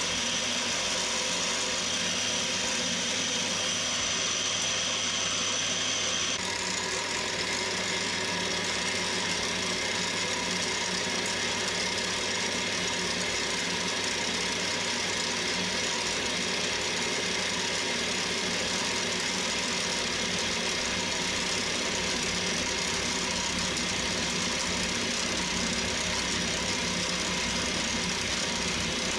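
Cormak ZX7045 mill-drill's spindle running steadily as it cuts holes into an aluminium block, first with a drill bit and then with a counterbore. A high whine drops out suddenly about six seconds in.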